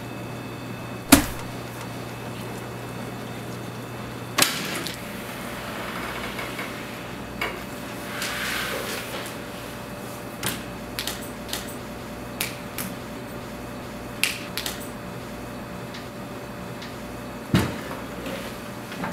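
A series of sharp knocks and taps over quiet room tone and a low steady hum. The loudest knock comes about a second in, a run of lighter taps follows later, and the hum stops about four seconds in.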